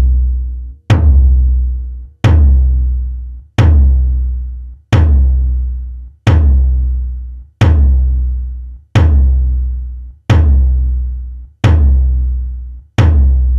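A deep electronic drum hit repeating steadily about every 1.3 seconds. Each hit has a sharp attack and a ringing tail that fades before the next.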